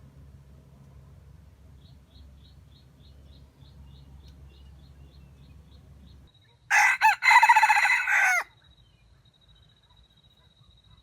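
A rooster crows once about seven seconds in, loud and short: a brief first note, then a longer one that cuts off. Before it, a faint high chirping repeats a few times a second.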